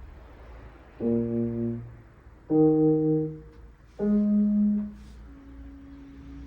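Three long single notes played on a horn-like instrument, each held for about a second and each a step higher than the last, then a faint steady tone.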